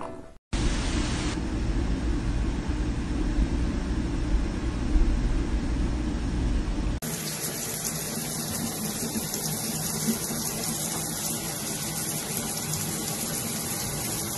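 A steady rushing noise with a heavy low rumble, then after a sudden cut about halfway, an even, steady hiss of water running in a bathtub.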